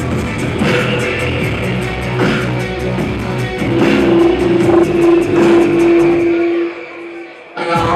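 Live band music: electric guitar over a beat with fast, even hi-hat-like ticks, with a held note near the middle. About six and a half seconds in, the low end and most of the music drop out, and the full band comes back in just before the end.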